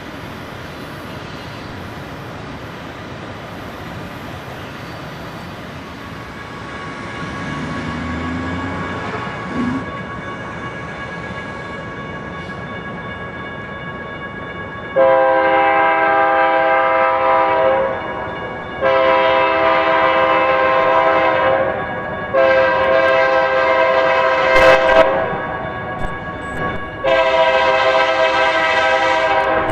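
Approaching BNSF locomotive, its rumble growing for the first half, then its multi-chime air horn sounding four long blasts, starting about halfway in, as it comes up on the grade crossing.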